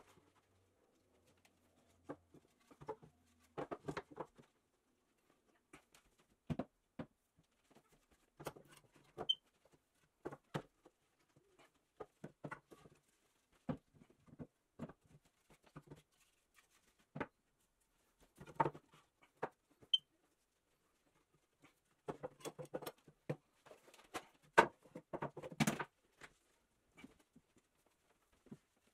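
Irregular light knocks, taps and clicks in scattered clusters with silent gaps between, busiest in the last third; a faint short high beep sounds about every ten seconds.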